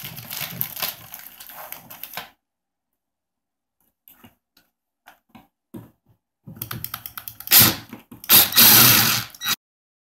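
A plastic bag of screws crinkling as a hand rummages in it, for about two seconds. Then, from about six and a half seconds in, an 18-volt Ridgid cordless driver runs in two loud spurts, driving a screw through a metal bracket into a wooden support brace.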